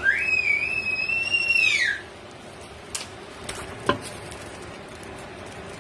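A single long, high-pitched animal call: it rises, holds for about a second and a half, then falls away. Two light knocks follow about a second apart.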